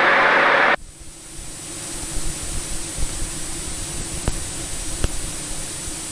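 A loud burst of radio static through the cockpit headset that cuts off suddenly under a second in, then a steady quieter hiss of aircraft intercom and cabin noise with a faint steady hum and a few light clicks.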